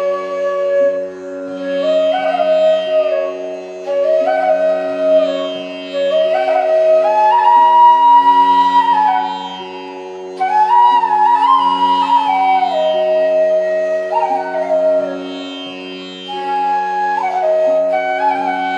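Background music in an Indian classical style: a flute-like melody gliding and stepping between notes over a steady drone.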